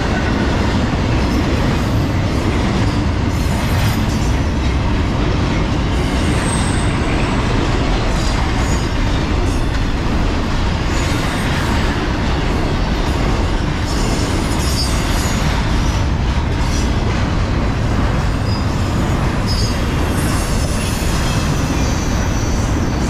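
Intermodal freight train passing close by: a steady rumble and clatter of car wheels on the rails from container well cars and trailer flatcars, with a few brief high wheel squeals.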